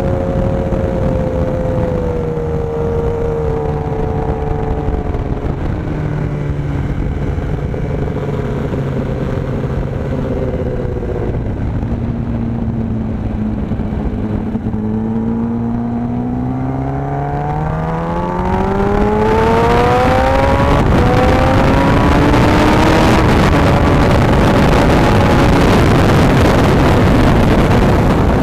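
Kawasaki ZX-10R inline-four engine heard from on board. Its pitch falls slowly for about the first half as the bike slows through the corners, then climbs steadily as it accelerates hard onto the straight. In the second half a loud rush of wind builds and partly covers the engine.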